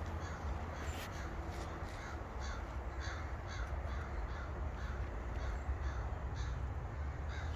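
Birds calling over and over, about twice a second, over a low steady rumble.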